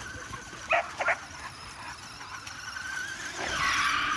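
A dog barks twice in quick succession about a second in. Then comes the thin, steady whine of a remote-control car's electric motor, with a louder rushing noise rising near the end.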